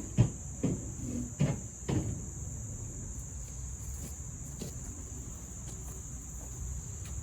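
Crickets trilling steadily, with four dull thumps in the first two seconds.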